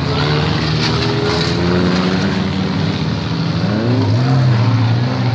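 Several demolition derby car engines running together. One engine revs up and back down about two-thirds of the way through.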